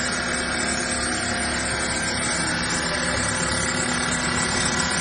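Water-cooled diamond blade of a WLCNC-500 CNC bridge saw cutting steadily through a stone slab, with a constant whine over an even cutting noise.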